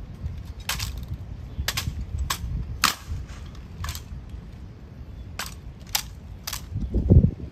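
Honor guard rifle and foot drill: about nine sharp, separate clacks at uneven intervals over a low outdoor rumble, with a louder low thump near the end.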